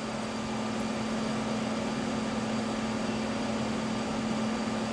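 Steady mechanical hum with an even hiss and no change in pitch or level.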